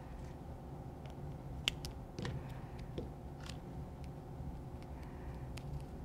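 Electrical tape being handled and wrapped around soldered wire splices: a few short, faint clicks and crackles over a steady low hum.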